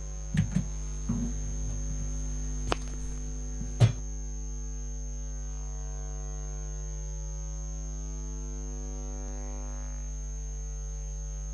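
Steady electrical mains hum: a low buzz with many overtones. A few short clicks and knocks come in the first four seconds, the sharpest about four seconds in.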